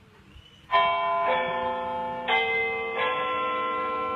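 Bell-like chiming tones: under a second in, a ringing note sounds suddenly, and new notes are struck about once a second, each ringing on over the last.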